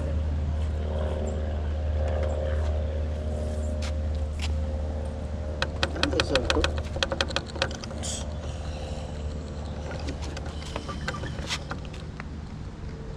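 A quick run of light clicks and taps about halfway through, from hands and hand tools working on the model airplane's engine and propeller, over a steady low hum.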